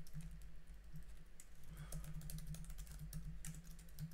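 Typing on a computer keyboard: a quick, irregular run of faint key clicks over a low steady hum.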